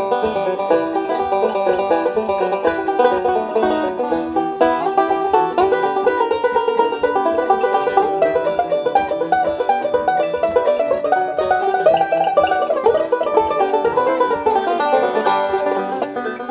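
Banjo playing a fast bluegrass-style tune, a quick steady stream of picked notes.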